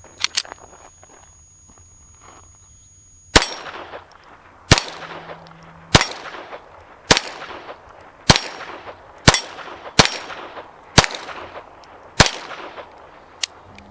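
A .22 being fired at AR500 steel plates: about nine single shots, roughly one a second, starting a few seconds in. Each hit sets the steel clanging and ringing briefly. The spinner target is not turned by the light .22 hits.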